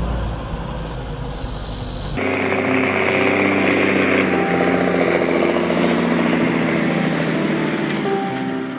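Engine and road rumble from a vehicle driving a rough dirt trail for about two seconds. Then an abrupt cut to background music of sustained, held tones.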